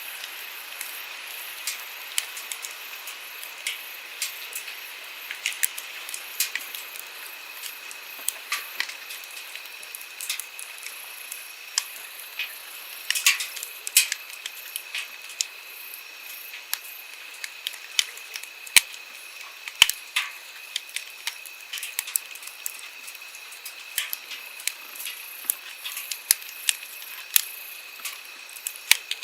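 Wood campfire crackling with many irregular sharp pops, over the steady hiss of a flowing stream.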